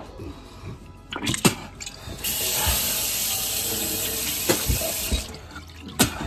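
Sink faucet turned on, water running in a steady stream for about three seconds before it stops, with a few sharp knocks just before the flow starts and again near the end.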